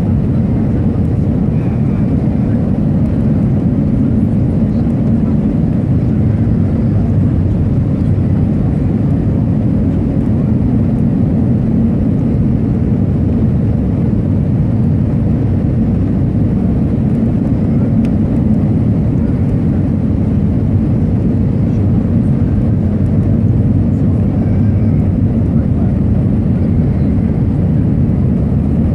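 Steady cabin noise of an easyJet Airbus A319 in flight: a loud, even rumble of the engines and airflow heard from inside the cabin, with no change in pitch or level.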